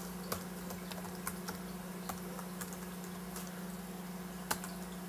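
Typing on a MacBook laptop keyboard: scattered key clicks, with two louder taps, one just after the start and one near the end, over a steady low hum.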